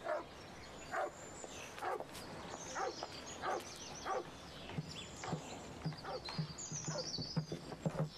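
A dog barking repeatedly, roughly once a second, with birds chirping.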